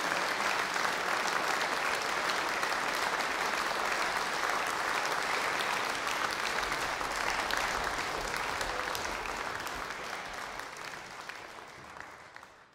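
Concert hall audience applauding, a dense steady clapping that fades out near the end.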